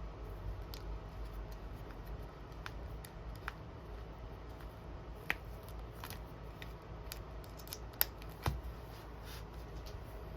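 Scissors snipping: scattered small clicks and cuts, the sharpest ones a little past halfway, over a low steady hum.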